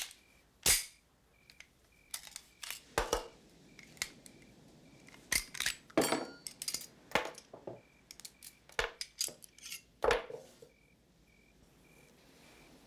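Semi-automatic pistol being field-stripped by hand: a quick, irregular run of sharp metallic clicks and clacks as the slide, barrel, recoil spring and magazine come apart and are set down on a table, stopping about ten seconds in.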